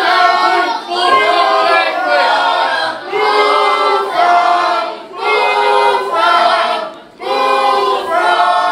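A group of voices singing together in chorus, in held notes that come in phrases of about two seconds with short breaks between them.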